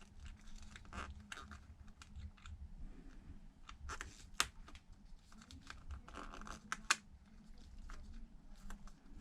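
Faint handling scratches and rustles over the open iPad Pro, with a few sharp clicks as the screen's connectors are pressed down and snap into their sockets; the two loudest clicks come about four and a half and seven seconds in.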